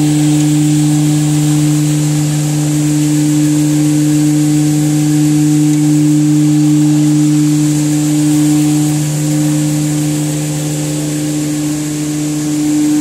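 Automatic facial tissue log saw cutting machine running: a steady low motor hum with a thin, high steady whine above it.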